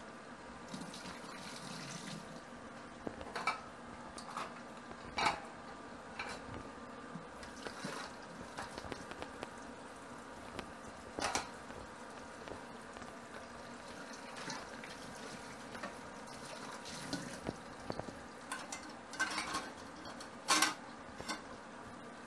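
Washing up in a stainless steel sink: scattered clinks and knocks of metal bowls and utensils against the sink, the loudest near the end, over a steady background hum.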